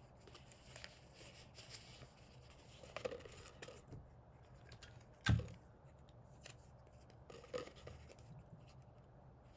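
Hands handling a paper rocket tube and pressing tape onto cardboard fins: faint paper and tape rustling and crinkling, with one sharp knock about five seconds in.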